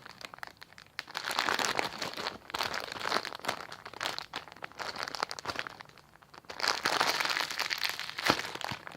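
Crinkling, crackly rustle of hands squeezing and handling a foam melon squishy bun. It comes in bursts, with a quiet pause around six seconds in.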